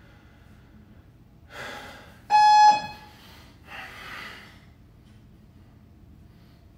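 Gym interval timer sounding one loud beep of about half a second, marking the start of a work interval. A heavy breath out comes just before the beep and another about a second after it.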